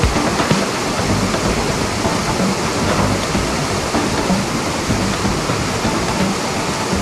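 A steady rushing noise, with the low hum of a Jeep Wrangler's engine coming and going as it crawls over rock.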